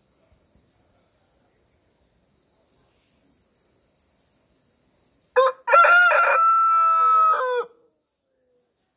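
Rooster crowing once about five seconds in: a short opening note, then a long held cock-a-doodle-doo of about two seconds that cuts off sharply. Before it, a faint steady high insect buzz.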